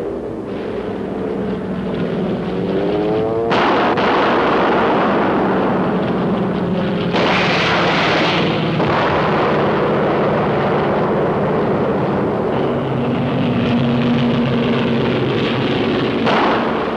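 Steady drone of a propeller aircraft's engine, a noisy rumble with a low hum underneath, growing suddenly harsher about three and a half and seven seconds in.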